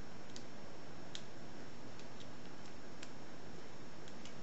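Single pin picking a UHP 5-pin padlock under tension: a handful of faint, sharp ticks, spaced irregularly, as the pick works the pins, over a steady background hiss.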